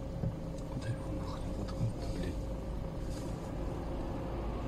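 Steady low rumble of road traffic, with a faint steady hum above it.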